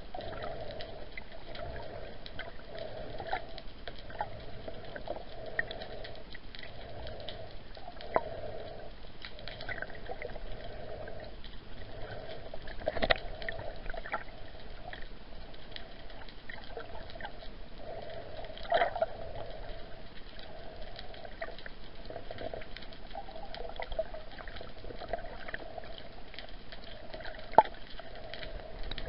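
Muffled underwater water noise picked up by a camera under the surface: a steady dull wash with scattered clicks and knocks, the loudest knock about 13 seconds in and a sharp click near the end.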